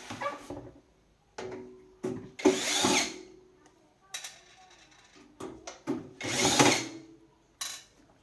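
A small power tool, such as a drill or electric screwdriver, running in two short bursts about two and six seconds in, with knocks and clicks of handling between them.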